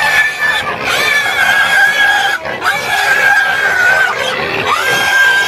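Pig squealing in distress as a crocodile holds it in the water: a string of long, steady, high-pitched screams, about four in a row with short breaks between them.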